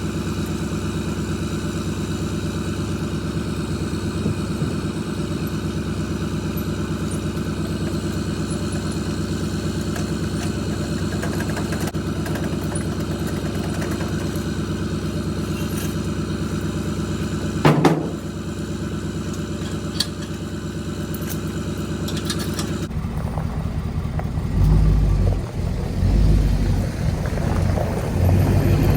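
A motor vehicle engine running steadily at an even pitch, with one short louder knock partway through. About three-quarters of the way in the sound changes abruptly to a louder, uneven low rumble of a vehicle on the move.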